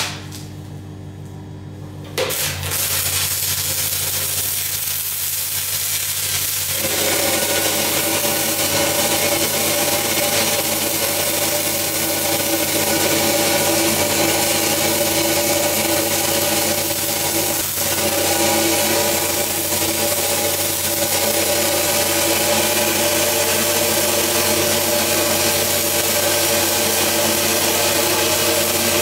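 Shielded metal arc (stick) welding on steel pipe with a cellulose 6010/8010 electrode. The arc strikes about two seconds in and then gives a steady hissing crackle, over the steady hum of a 1958 Lincoln SA200 engine-driven welder running.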